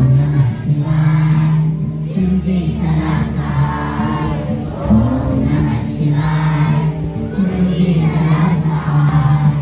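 Group of children singing a devotional prayer together in chorus, over a steady low drone.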